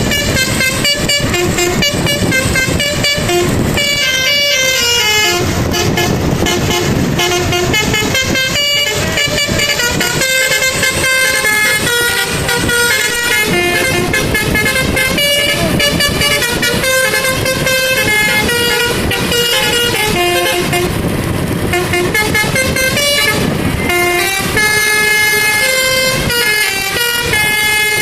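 Telolet basuri musical air horn, a set of trumpets driven by an electronic note module, playing a tune of quickly changing notes, often several at once, with a vehicle's engine rumbling underneath.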